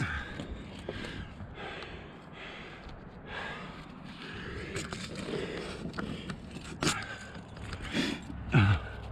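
Climber breathing hard while jamming up a granite crack, with hands and shoes scraping on the rock and a few knocks. The loudest moment is a short grunt falling in pitch near the end.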